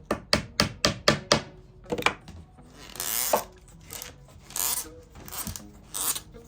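Wood knocking on wood in a quick run of about six sharp taps as dowels are handled and fitted into the oak piece, then three short rasping strokes of wood rubbing.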